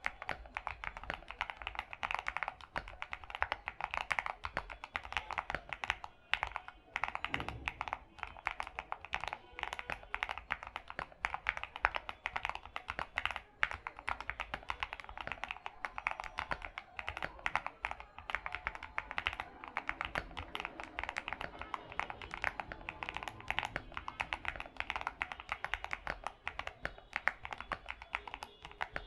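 Fast, continuous typing on an Akko ACR67 mechanical keyboard fitted with SA profile keycaps, a quick unbroken stream of key clacks.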